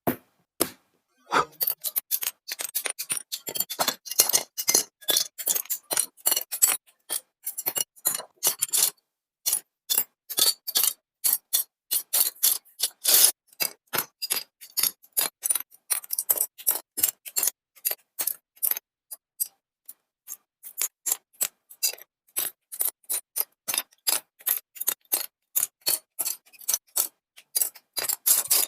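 Building a 1/144 High Grade Gunpla plastic model kit: a quick, irregular run of sharp plastic clicks and snips as parts are cut from the runners and snapped together.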